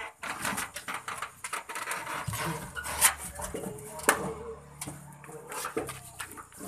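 Motorcycle tricycle heard from inside its sidecar while riding: the engine's low drone under a constant rattle of the frame and canopy, with two sharp knocks about three and four seconds in.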